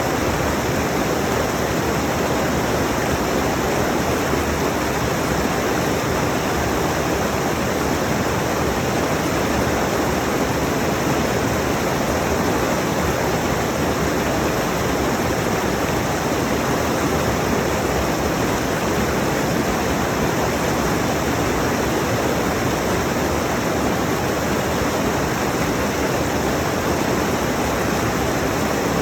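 Rushing mountain stream: a steady, loud wash of water over rocks, even and unbroken.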